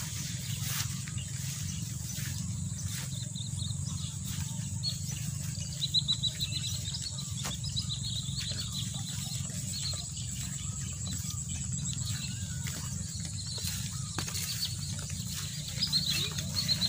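Rural field ambience: a steady high-pitched drone with quick, repeated chirping animal calls that start about a third of the way in and continue, over a low steady rumble and scattered soft clicks.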